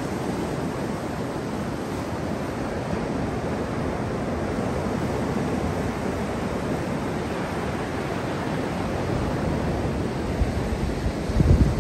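Atlantic Ocean surf breaking and washing up the beach in a steady rush, with a brief low rumble near the end.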